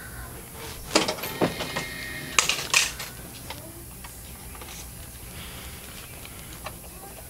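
Items being handled and bagged at a shop checkout counter: several sharp clicks and knocks about a second in and again around two and a half seconds in, over a low steady hum.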